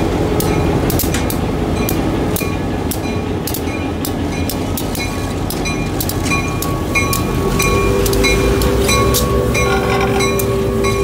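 Diesel locomotive running as it moves past, a steady low engine rumble that settles into a firmer hum about halfway through. Over it a bell rings evenly, about three strikes a second.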